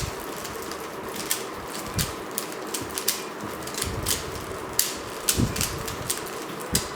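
Rubik's Cube being scrambled by hand: its plastic layers turning with irregular clicks, roughly two a second.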